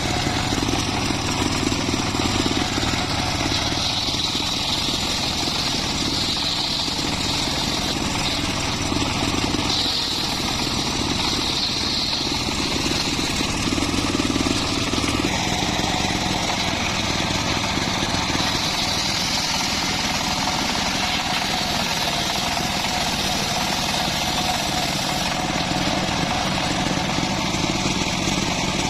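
Circular saw running at full power and cutting teak and mahogany wood: a steady, loud machine noise with a high whine that swells and eases over stretches of a few seconds.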